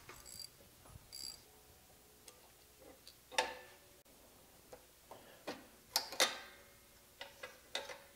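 A socket ratchet clicking briefly as it backs out a Torx screw, then scattered metal clinks and taps as the connecting rod and piston of an oil-free Campbell Hausfeld air compressor are worked loose by hand; the sharpest knocks come about three and a half and six seconds in.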